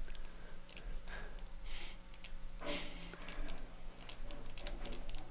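Computer mouse and keyboard clicks, scattered and irregular, as control-clicks place points of a mask, over a low steady hum.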